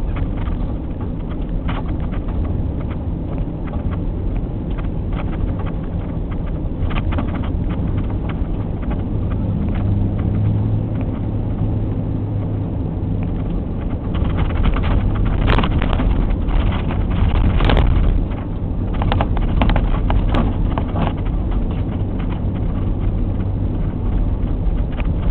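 Vehicle driving on a snow-covered road, heard from inside the cabin: a steady engine and tyre rumble. Past the middle comes a stretch of repeated knocks and rattles, as if from bumps in the road.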